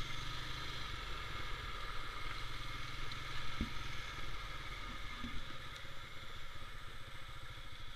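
Honda ATV engine running steadily, with one short knock about three and a half seconds in.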